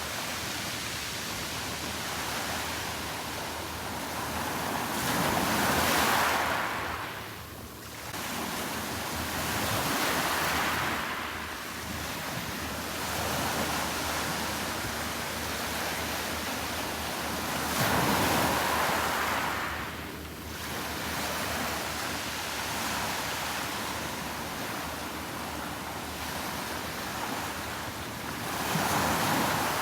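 Sea surf breaking and washing on a beach, a steady rush that swells louder every several seconds, four times over.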